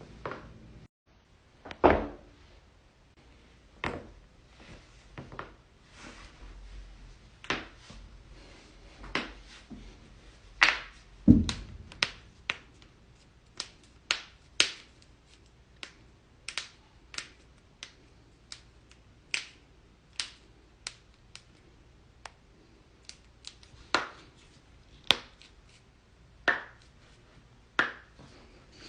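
Dozens of sharp joint cracks and pops at irregular intervals, one after another. A couple are much louder than the rest, one of them with a deep thud.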